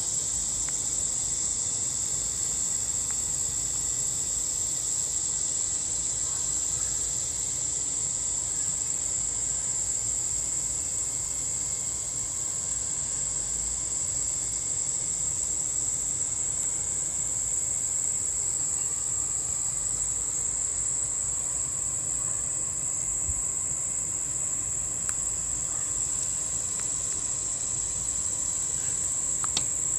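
A steady, high-pitched chorus of insects, such as crickets, with a faint low rumble underneath. There are a couple of sharp clicks near the end.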